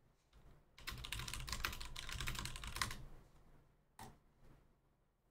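Rapid typing on a computer keyboard for about two seconds, followed by a couple of single clicks.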